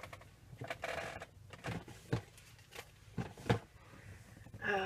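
Light handling noises of craft supplies: a short rustle about a second in, then several scattered light taps and clicks.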